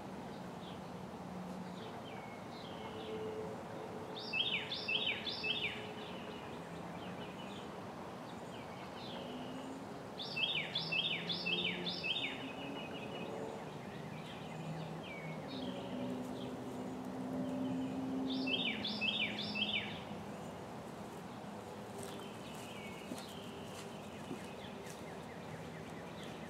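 A songbird singing a phrase of four or five quick falling notes, three times about six to eight seconds apart, with softer chirps between. A steady low background hum runs underneath.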